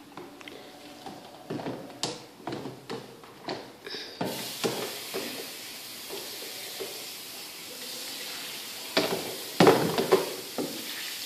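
Plastic wash basin knocking and clattering against a sink, then a tap turned on about four seconds in and running steadily as the basin is rinsed under it, with a few louder knocks of the basin near the end.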